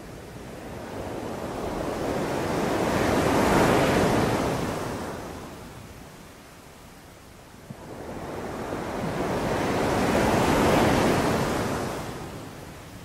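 Sea waves breaking on a beach: two waves, each swelling to a peak and then washing back out, about seven seconds apart.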